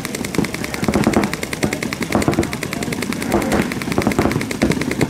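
Paintball marker firing a rapid, even string of shots, many a second, with duller thuds mixed in.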